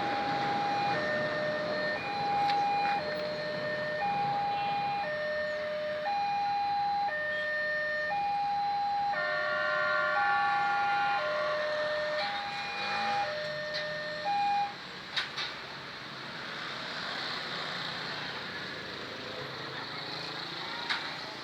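Railway level-crossing warning alarm sounding a two-tone alternating signal, a high note and a lower note of about a second each, repeating steadily and cutting off about fifteen seconds in. A steady rushing noise follows.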